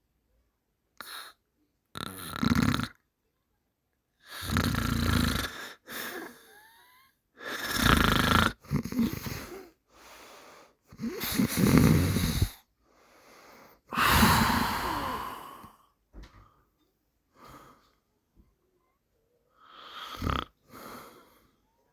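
Heavy snoring from a sleeping person: loud snores about every two to three seconds, with fainter breaths between them and a longer lull before the last snore.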